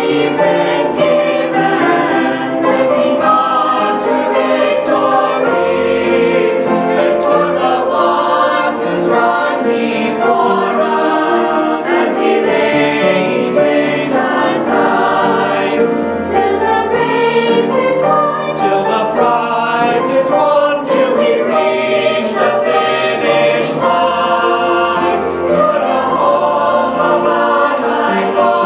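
Young mixed choir of boys' and girls' voices singing a sacred song together, unbroken throughout.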